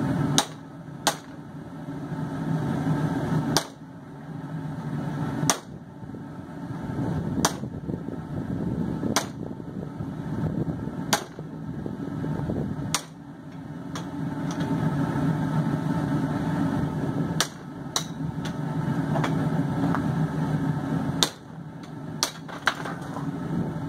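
Hammer blows on a hot chisel, splitting a heated steel bar on the anvil for split-rein tongs. Single sharp strikes come about every two seconds, over a steady low rumble.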